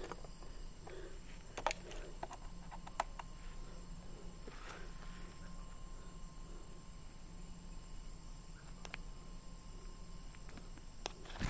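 Faint, steady chirring of night insects, crickets by the tags. A few sharp clicks and a soft rustle come from the camera and gear being handled close to the microphone.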